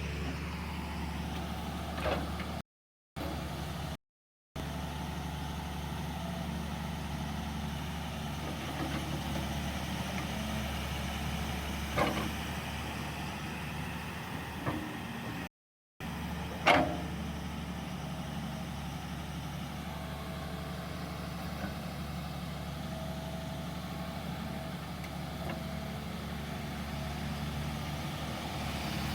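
Tata Hitachi hydraulic excavator's engine running steadily, with four short sharp knocks spread through, the loudest about halfway.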